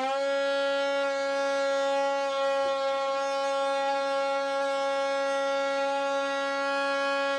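Electric ducted lift fan of a model hovercraft, driven by a brushless motor, running at a steady speed with a steady whine as it blows air into the hovercraft's fabric skirt to inflate it.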